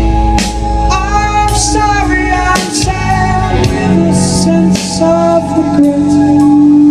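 Live progressive rock band playing a slow passage, with a singing voice over sustained keyboard and guitar notes, a held bass line and cymbals, captured by an audience recording.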